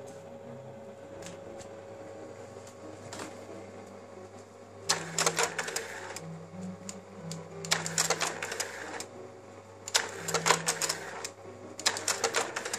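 Braun Novamat 515 AF-1 slide projector running with a steady hum. From about five seconds in, its automatic slide changer goes through four changes, each a second-long run of rapid clicking and clattering with a motor whir, as the changer arm swaps slides from the magazine.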